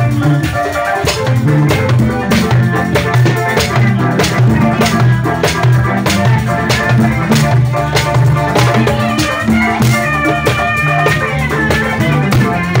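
Live band music: an electric bass, a Washburn, plays a moving line of low notes over a steady drum beat, with higher pitched instrument parts held above it.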